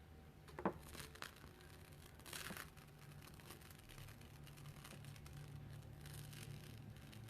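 Faint handling of an adhesive silkscreen transfer on fabric during chalk-paste stencilling: a sharp tap a little under a second in and a short rasping, tearing-like noise about two and a half seconds in, over a low steady hum.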